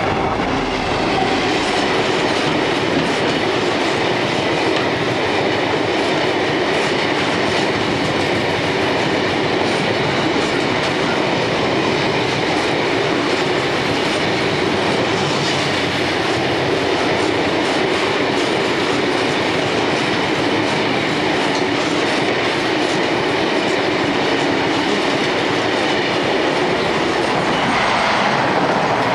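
Freight train of loaded hopper wagons rolling past at speed, the wheels clattering steadily over the rail joints. The noise builds within the first second and then holds level.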